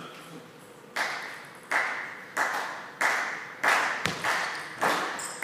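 Table tennis rally: the celluloid ball cracking off bats and table in a steady back-and-forth rhythm of roughly one and a half strikes a second, starting about a second in, each hit ringing out in the hall's echo. A duller thud about four seconds in.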